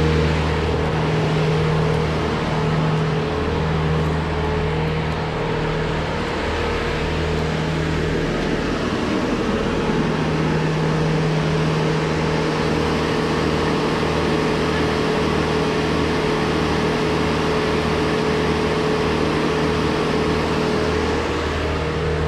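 A steady mechanical hum: a constant low drone with held tones, like a running engine or machine.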